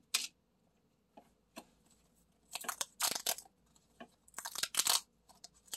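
Paper pull-tab lottery tickets having their tabs torn open: short papery rips with crinkling, a single one at the start, a few light ones after, and two longer bursts of tearing around the middle and near the end.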